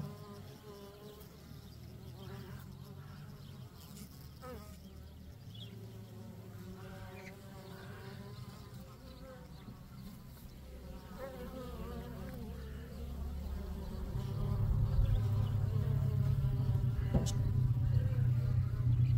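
Honeybees buzzing at a hive entrance: a steady low hum of wings that grows clearly louder about two-thirds of the way through as bees fly close.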